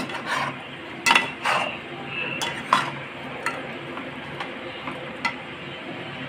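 A metal spoon stirring in a cooking pot, scraping and clinking against the metal: several louder scrapes in the first three seconds, then a few lighter clinks. A steady low hum runs underneath.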